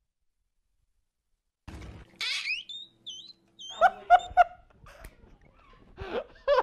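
Dead silence, then a rising high squeal and a few short high chirps, followed by a man's exaggerated vocal reaction: three short yelps and, near the end, drawn-out moaning cries.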